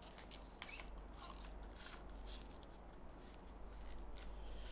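Carbon fibre tripod legs being extended by hand: faint rubbing, scraping and small clicks as the leg locks are worked and the tube sections slide out.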